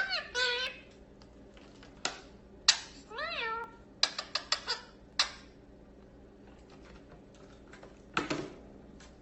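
Two short meow calls, one at the start and one about three seconds in, each rising and falling in pitch, among a scatter of sharp clicks and taps.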